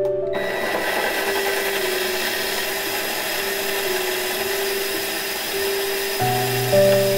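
Seimai Gozen home rice-polishing machine switching on about a third of a second in and running steadily, its motor whirling the rice grains so they rub against each other and the mesh basket as they are polished.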